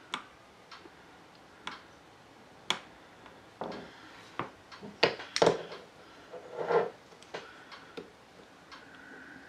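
Irregular small clicks and taps of metal and plastic parts being handled and fitted into the opened frame of a Crosman 357 pellet pistol, with the loudest cluster of knocks about five seconds in.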